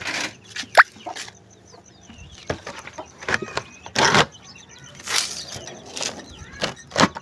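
Domestic chickens clucking, with chicks peeping faintly, among a few short knocks and rustles.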